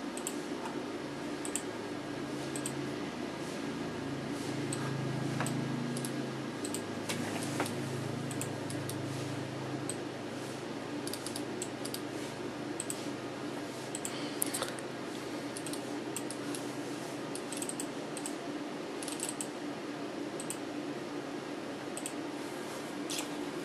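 Wireless computer mouse buttons clicking now and then, in short sharp clicks at irregular intervals, over a steady low background hum.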